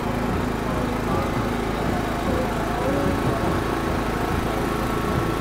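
Boat engine running steadily, a constant low rumble.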